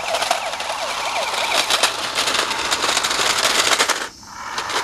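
Toy R/C crash car's built-in electronic sound effects: a rapid clicking rattle with a short warbling siren tone repeating several times a second. The sound briefly drops away about four seconds in.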